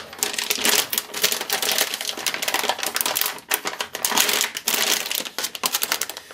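Metallised anti-static shielding bag crinkling and crackling as it is opened and a graphics card is slid out of it: a dense, continuous crackle of plastic with loudness rising and falling as the bag is handled.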